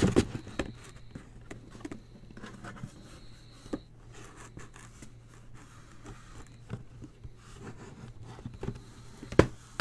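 Scattered light scrapes and taps of trading-card boxes being handled on a table, over a steady low hum, with one sharp knock near the end.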